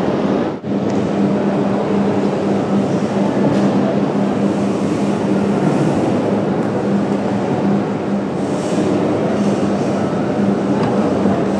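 Busy railway station concourse ambience: a steady wash of crowd hubbub and station noise under a constant low hum, with a brief drop-out about half a second in.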